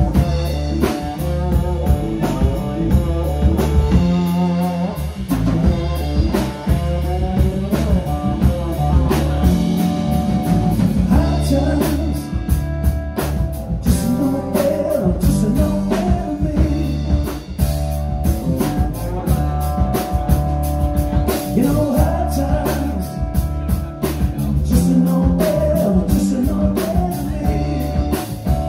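Live blues-rock band playing: guitar over a drum kit, with bending, gliding guitar notes.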